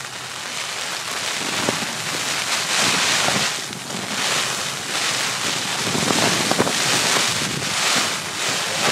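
Gusting wind and rain, a dense rushing noise that swells and eases every second or two.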